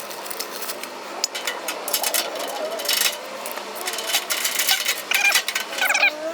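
A cat meowing, with bending mewing calls near the end, over a run of small clicks and rustling.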